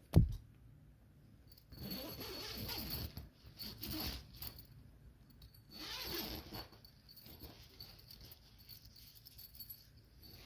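A sharp thump, then several bursts of rustling and handling noise with a light metallic jingle, about two seconds in, around four seconds and around six seconds.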